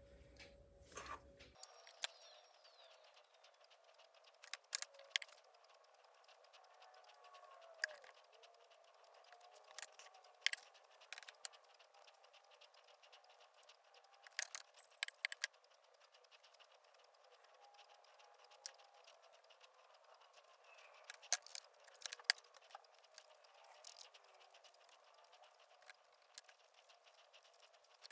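Faint, scattered small clicks and taps of metal hand tools being handled, several coming in quick clusters.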